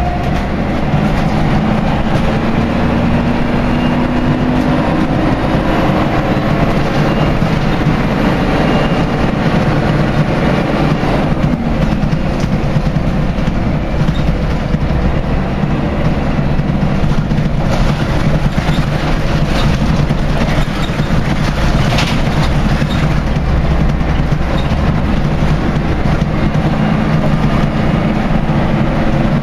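Inside a Scania L113CRL single-decker bus on the move: the rear-mounted six-cylinder diesel running under way, with steady road noise. The engine note climbs in pitch early on, and a few short rattles and knocks come in the middle.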